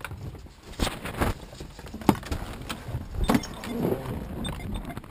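Several sharp clicks and knocks inside a pickup truck's cab with keys jangling, then the door pulled open from inside by its handle.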